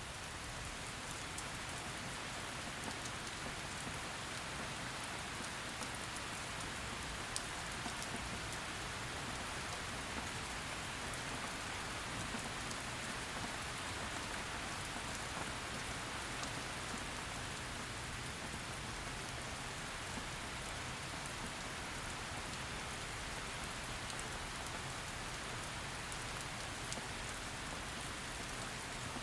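Steady heavy rain falling on a surface, a dense even hiss sprinkled with fine drop patter.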